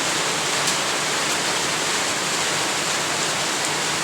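Heavy rain falling steadily: a dense, even rush with faint scattered drop ticks.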